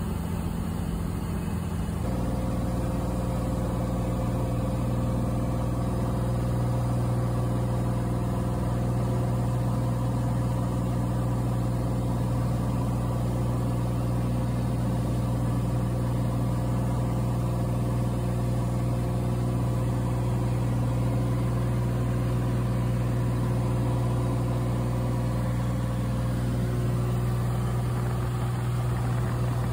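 Cessna 182's piston engine and propeller droning steadily in cruise, heard from inside the cabin. The pitch of the drone steps once about two seconds in.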